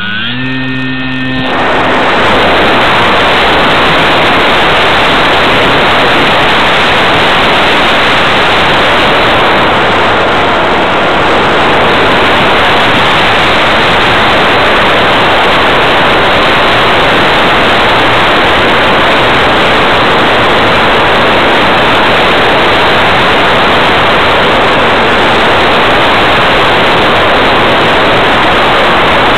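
Loud, steady rush of wind and propeller wash over the microphone of a small onboard camera on the wing of a ParkZone P-51 Mustang RC plane in flight.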